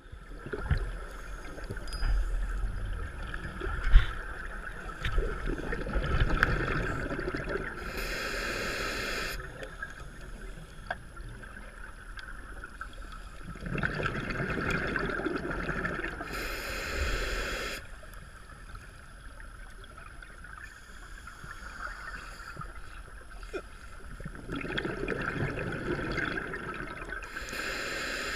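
Scuba regulator breathing heard underwater: short hisses and longer stretches of bubbling gurgle that come and go in a cycle about every eight or nine seconds, about three breaths in all.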